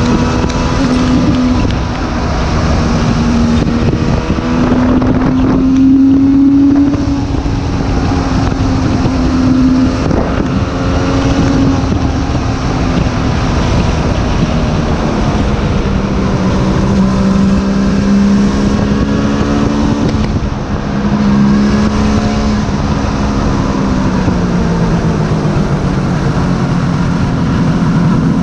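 Suzuki GT750's water-cooled two-stroke three-cylinder engine running under way, its pitch rising and falling gently several times and dropping lower near the end, with wind rushing over the microphone.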